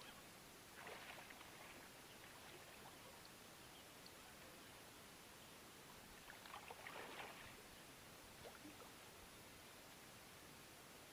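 Near silence with a faint hiss. Dry, dead bankside grass rustles and crackles briefly twice, about a second in and again around seven seconds.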